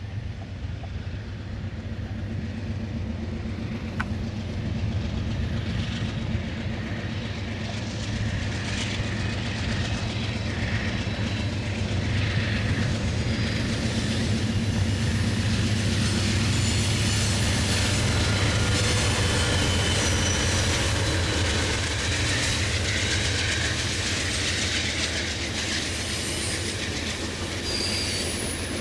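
Amtrak passenger train led by GE Genesis diesel locomotives approaching and passing close by: a low diesel rumble that builds louder, then bi-level Superliner cars rolling by with wheel noise on the rails and thin wheel squeals in the later part.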